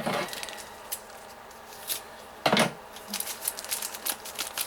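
Toy packaging being handled: plastic and cardboard rustling with scattered clicks, and louder crinkling bursts at the start and about two and a half seconds in.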